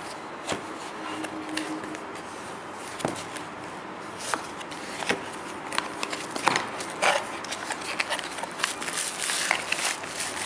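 Cardboard box being handled and its end flap opened by hand. Scattered scrapes, taps and crinkles grow busier in the second half, over a steady hiss.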